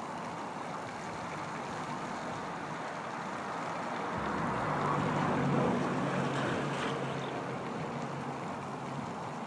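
Steady rushing noise of wind buffeting the microphone. A low, steady hum swells and fades between about four and seven seconds in.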